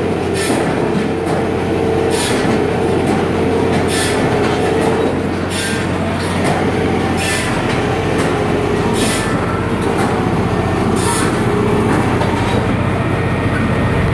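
Rotating drum of a firewood cleaner (tumbler) running steadily with a low drone. Firewood clatters inside it every second or two as the drum tumbles it to knock off loose bark, splinters and dust.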